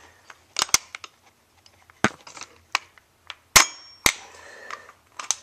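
Sharp metallic clicks and clacks of a KWA LM4 gas blowback airsoft rifle being reassembled, about seven in an irregular string. The loudest, about three and a half seconds in, rings briefly.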